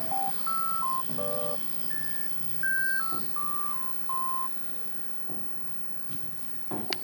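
Background music: a simple melody of pure electronic beep-like tones, one note at a time with a short chord about a second in.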